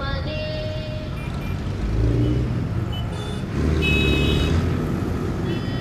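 A motor vehicle's engine rumbling over street noise, swelling twice, about two seconds in and again from near four seconds, with music faintly underneath.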